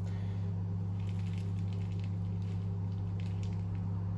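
Carp-bait pellets trickling from a scoop into a solid PVA bag, a few faint light patters, over a steady low hum.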